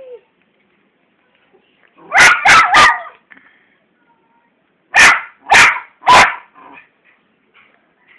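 Miniature schnauzer barking loudly: three quick barks about two seconds in, then three more, spaced a little wider, about five seconds in.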